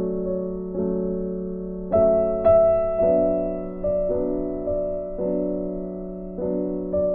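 Background music: soft, slow piano chords, struck about once a second and left to ring.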